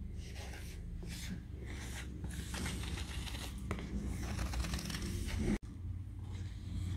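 Plastic squeegee rubbing and scraping over vinyl lettering on aluminium signs, in irregular strokes, with the sheets sliding on a cutting mat. A steady low hum runs underneath.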